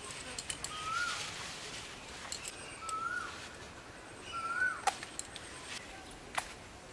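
A bird repeats a short whistled note that rises and drops back, three times about two seconds apart. Under it are leaves rustling and a few sharp snaps as eggplants are picked by hand.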